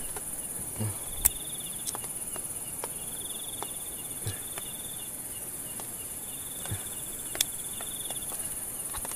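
Night insect chorus: a steady high shrill with a cricket trilling in pulses about every three seconds. A few sharp clicks and taps from the hook and rod being handled cut through, the loudest about a second in and near seven seconds in.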